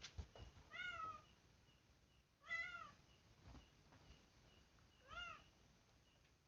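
Domestic cat meowing three times, each call rising then falling in pitch, the middle one the loudest.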